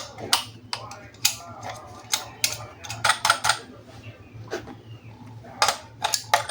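Irregular sharp clicks and taps of hard plastic toy parts and packaging being handled, some in quick clusters, with short pauses between.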